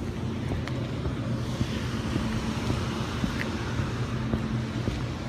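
Rooftop HVAC unit running: a steady low hum, with wind buffeting the microphone.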